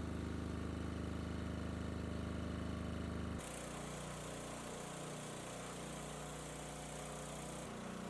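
Diesel generator engine running steadily. About three and a half seconds in the sound changes abruptly to a slightly quieter, hissier running sound.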